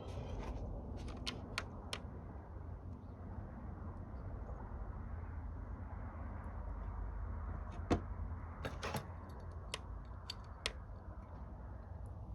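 Scattered light clicks and clinks of small metal parts and tools being handled, over a steady low rumble.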